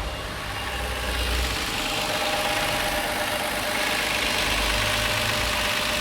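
Toyota Avalon's V6 engine idling with a misfire: a random multiple misfire, later traced to cylinders 3 and 6, makes the engine shake at idle.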